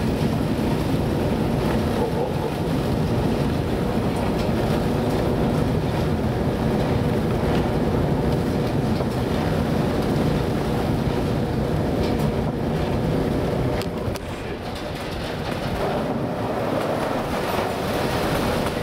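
Continuous heavy rumble of a ship's engines and hull working through a storm at sea, mixed with wind and sea noise. It eases briefly about fourteen seconds in, then builds again as spray and water come over the bow.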